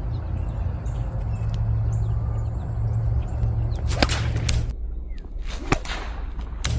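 Paracord sling swung and released, a short sharp swish about four seconds in as the cement sling bullet is thrown, with a few clicks and another brief swish near the end, over a steady low background rumble.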